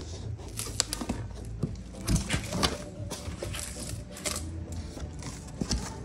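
Cardboard shipping box being opened and handled: irregular rustling, scraping and knocking of the cardboard flaps and packing, in uneven clusters with a few sharper knocks.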